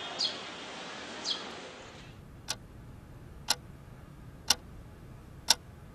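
A clock ticking four times, once a second, after a soft hiss with two short high chirps in the first two seconds.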